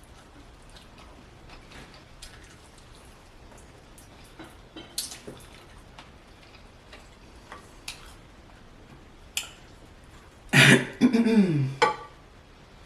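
Quiet eating sounds: chewing, with scattered small mouth clicks and smacks. About ten seconds in comes a loud vocal noise from the eater, falling in pitch over about a second, like a throat clearing.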